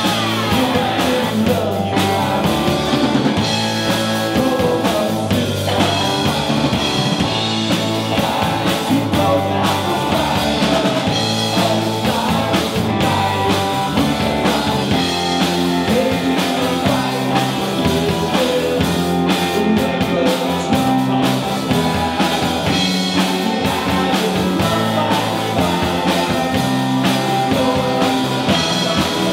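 Live rock band playing an instrumental stretch: electric guitar over bass guitar, drum kit and keyboard.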